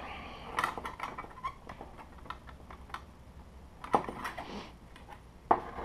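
Scattered light clicks and taps of hands and a tool handling a 3D printer's metal frame, with two sharper knocks about four and five and a half seconds in.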